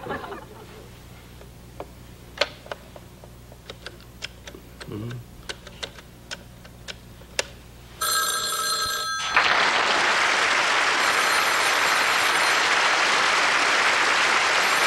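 Faint scattered clicks, then a telephone bell starts ringing about eight seconds in. About a second later loud, steady studio-audience applause joins it and lasts to the end.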